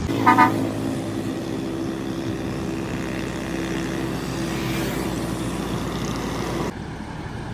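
A vehicle engine running steadily, with a short loud high-pitched blast about a third of a second in; the engine sound stops abruptly near the end.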